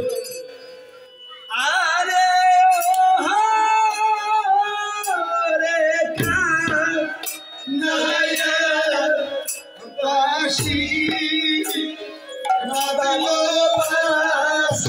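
Men singing a Rajbongshi (Goalpariya) devotional song to the goddess Manasa, with a double-headed barrel drum struck now and then with deep strokes. The singing starts after a brief lull at the beginning.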